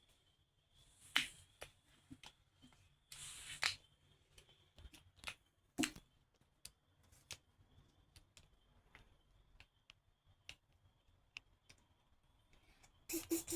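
Irregular sharp clicks and snaps from a fidget toy being worked in the hands, with two short rustling bursts near the start.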